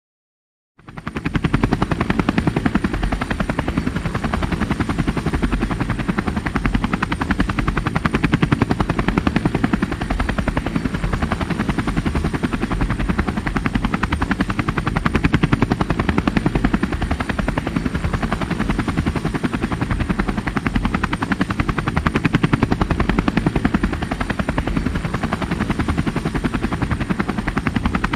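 Helicopter coming in to land and then running on the pad with its rotor turning: a steady, rapid blade beat, starting about a second in.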